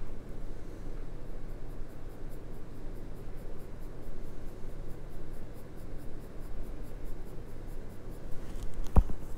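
Graphite pencil scratching on drawing paper in shading strokes, with one sharp knock near the end.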